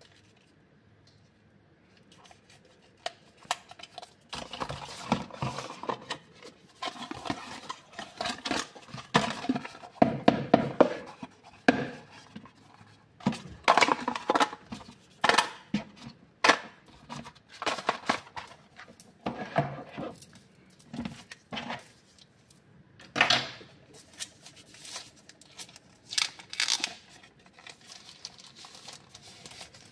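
Handling noises from unboxing a smartphone: irregular scraping, rustling and sharp clicks and knocks as packaging and handset are handled, starting a few seconds in, with a cluster of louder knocks about a third of the way through.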